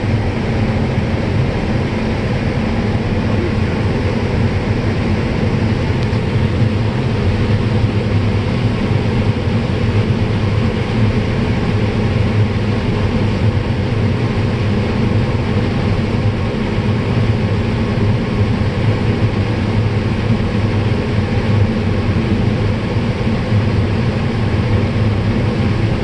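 Combine harvester running steadily while harvesting dry corn: a loud, even, low machine drone with the rushing of the corn head working through the stalks.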